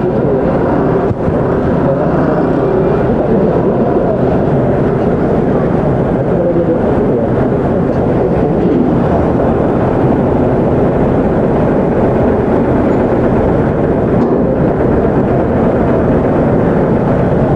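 Kawasaki ZX-25R's 250 cc inline-four engine with a Yoshimura R55 slip-on exhaust, running steadily under way, its pitch wavering a little. There is a brief drop in loudness about a second in.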